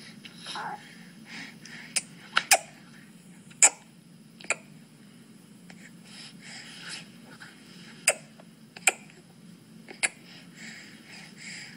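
Faint baby-like breathing and small throat noises, with several sharp clicks scattered through.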